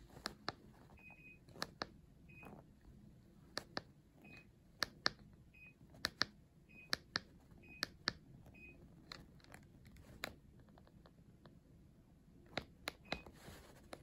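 Buttons of a Daikin air conditioner remote control clicking as they are pressed, many presses, often a pair of sharp clicks each. About eight short high beeps come in between, the air conditioner acknowledging the remote's signals.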